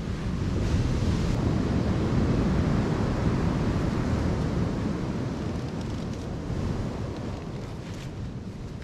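Ocean surf breaking and washing up the beach, with wind on the microphone. The roar swells about a second in and slowly eases off.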